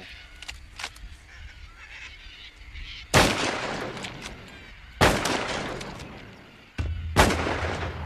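Three high-powered rifle shots about two seconds apart, each a sharp crack followed by a long fading echo.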